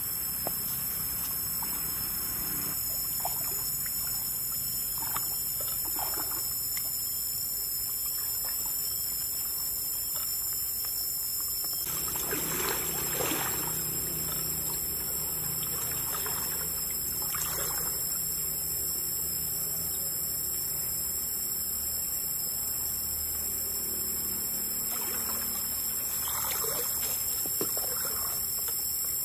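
Shallow creek water trickling, with a few splashes of feet wading through it, the loudest a little under halfway through. A steady high-pitched hiss and whine runs underneath.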